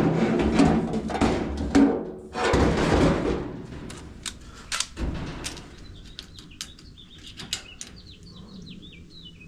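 A loud rushing, clattering noise for about the first three seconds, then scattered sharp clicks and knocks. Near the end a bird chirps a quick run of short falling notes.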